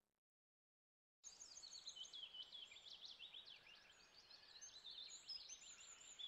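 Silence for about a second, then small birds chirping and singing outdoors: many quick, high notes that sweep downward, over a faint hiss.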